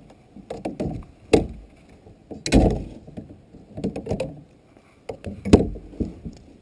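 Irregular knocks and thumps, about six of them, the loudest about two and a half and five and a half seconds in: handling noise while a hooked bass is brought in.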